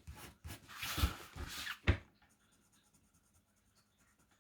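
Wax-based coloured pencil shading on paper: a run of irregular scratchy strokes for about two seconds, then it stops.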